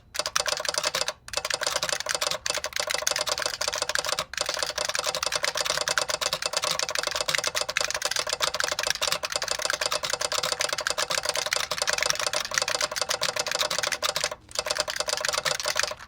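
Fast typing on a Model F 62 buckling-spring keyboard with a solenoid that fires on each keystroke: a dense, rapid clatter of key clicks. There are brief pauses about a second in, around four seconds in, and near the end.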